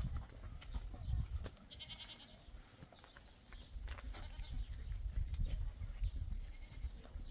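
Goats bleating in short, high calls about two and four seconds in, with a fainter call after, over a low rumbling noise.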